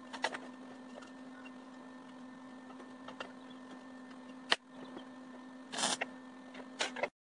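Light metallic clicks and knocks as square steel tubing is positioned on a steel welding table. About six seconds in comes a short crackling burst of a tack weld, then a few more clicks. A steady low hum runs underneath.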